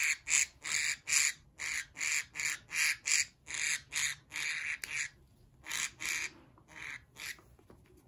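Budgerigar squawking in protest while held in the hand for nail trimming: short harsh calls, about three a second, which grow weaker and sparser after about five seconds.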